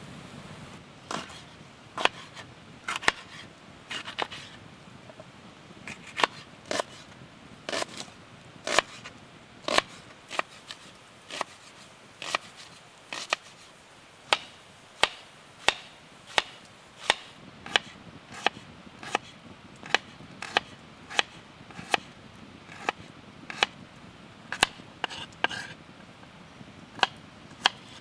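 Kitchen knife slicing vegetables on a wooden cutting board: the blade goes through and knocks on the board in crisp strokes, about one or two a second, most regular in the middle.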